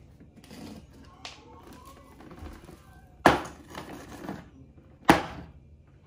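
Two sharp knocks, about two seconds apart.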